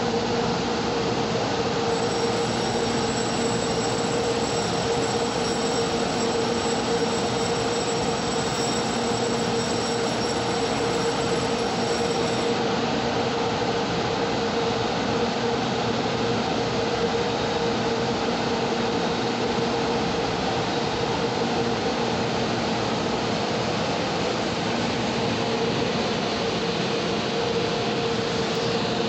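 EMU500 electric multiple unit pulling out of the station, heard from on board: a steady running rumble with a constant hum. A faint high whine sits above it and stops about twelve seconds in.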